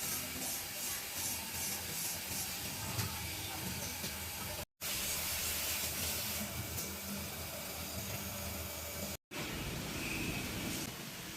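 Saw blade tooth grinding machines running: a steady hiss over a low hum, broken by two very short silences.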